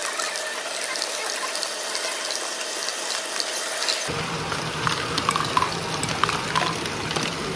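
Lego Great Ball Contraption modules running: a dense, steady clatter of small plastic balls rolling and dropping through the Lego mechanisms, with many small ticks from the moving parts.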